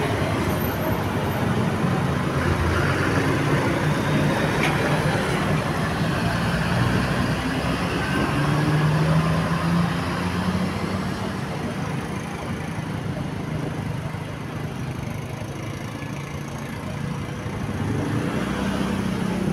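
Roadside traffic noise with a steady rumble of passing vehicles; a heavy engine's low drone swells about eight to eleven seconds in.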